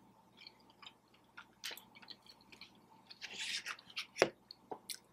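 Chewing a mouthful of cheesy taco pasta: scattered soft mouth clicks and smacks, with a sharper click a little after four seconds in.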